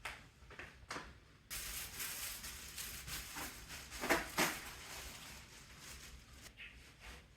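Handling noises of office-chair parts during assembly: a couple of light knocks, then several seconds of rustling and scraping that swells about four seconds in and fades toward the end.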